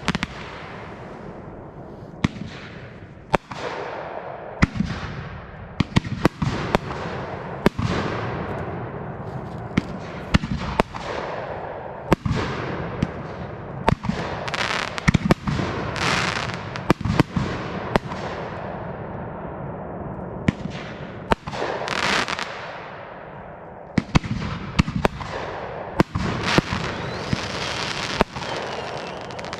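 Aerial fireworks display: shells bursting one after another, sharp bangs a second or so apart and sometimes in quick clusters, over continuous crackling.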